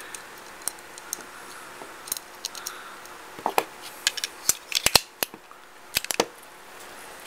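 Metal parts of a Raven MP-25 .25 pocket pistol clicking and scraping as it is reassembled by hand: a part is worked back into the slide and the slide is fitted onto the frame. Scattered light clicks come first, then a run of sharper clicks from about halfway through.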